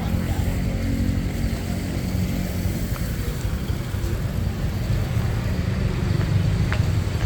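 Street ambience: a steady low rumble of road traffic passing, with a couple of faint clicks near the end.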